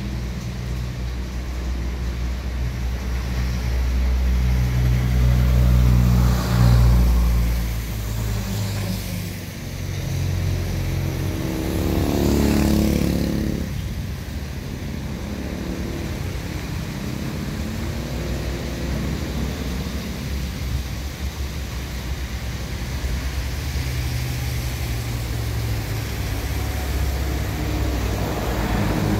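Road traffic on wet pavement: vehicle engines running and idling with a steady low hum, and vehicles passing close by about six and twelve seconds in, their tyres hissing on the wet road.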